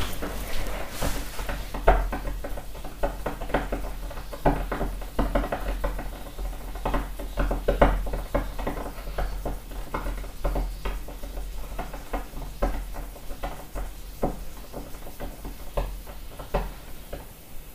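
Calcium carbide reacting with water while the acetylene it gives off burns, a dense, irregular crackling and sputtering that thins out over the last few seconds.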